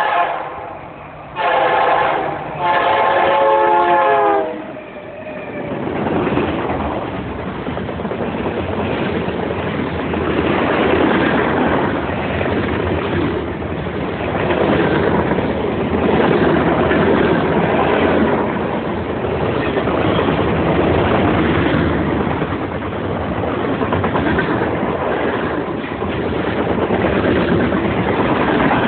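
Canadian National locomotive 8630's air horn sounding, one blast ending about a second in and a second blast held until about four and a half seconds in. Then the freight cars roll past close by: a steady loud rumble and clatter of steel wheels on the rails.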